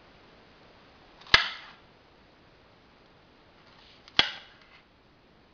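A kitchen knife cutting through an apple and striking a plastic cutting board: two sharp knocks about three seconds apart, each followed by a brief crunch.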